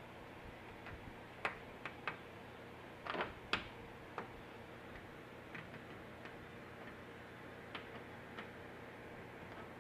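Irregular light clicks and taps of hand work on a bug shield and its plastic mounting clips, loudest about a second and a half in and in a quick cluster around three and a half seconds, then sparser. A faint steady hum runs beneath.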